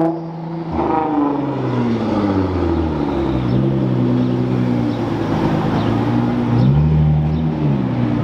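Nissan GT-R R35's twin-turbo V6 pulling away, its engine note dropping and climbing several times as it shifts and revs.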